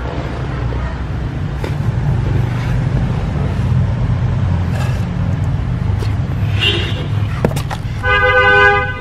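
Steady low rumble of road traffic, with a car horn sounding once for under a second near the end.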